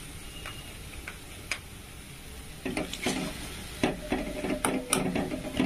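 Onion, tomato, ginger and garlic paste sizzling quietly in oil in a metal kadai. A little under three seconds in, a metal spatula starts stirring it, scraping and clacking against the pan as the masala is fried down.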